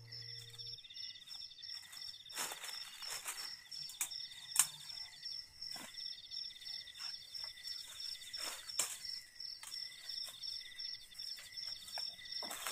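Forest insects calling steadily: a high chirp pulsing several times a second and a lower buzzing trill that comes and goes in stretches. Over them, footsteps and rustling through dry leaves and brush, with a sharp snap about four and a half seconds in.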